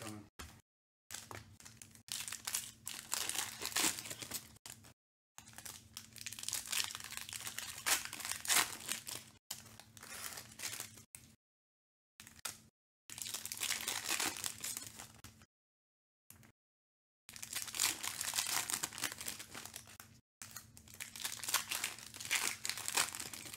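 Foil wrappers of Panini Select football card packs crinkling and tearing as the packs are opened, in bursts of a few seconds with short dead-silent gaps between.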